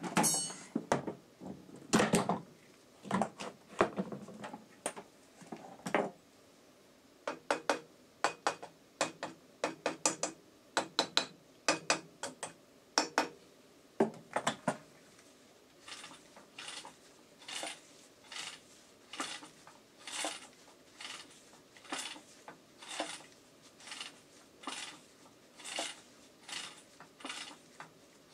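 Metal engine parts being handled by hand: irregular metallic clinks and knocks for about fifteen seconds, then a steady run of lighter clicks, a little over one a second.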